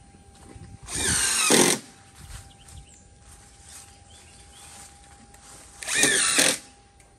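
Cordless power drill run in two short bursts, its motor whine rising in pitch as it spins up each time, about a second in and again about six seconds in.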